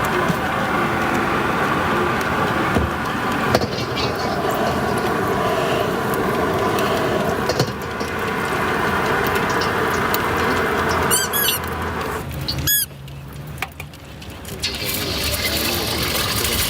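Steady background noise of a busy street-food stall, with a quick run of short high-pitched squeals about eleven seconds in and one more just before thirteen seconds, then a brief lull before the noise returns.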